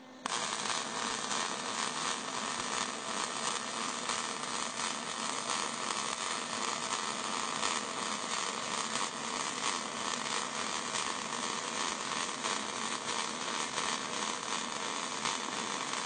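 MIG welding arc running a continuous bead along a seam between metal panels: a steady crackling buzz that strikes just after the start and holds without a break. The wire is fed at the lowered voltage used for filling a wide gap, on a slightly downhill seam.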